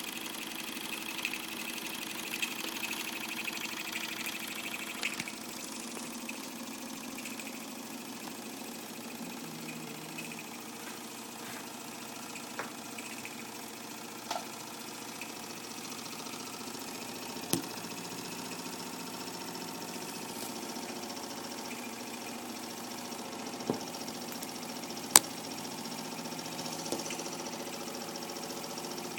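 Mamod SE2 toy steam engine running steadily under its own steam, with a hiss that stops about five seconds in and a few sharp clicks, the loudest near the end.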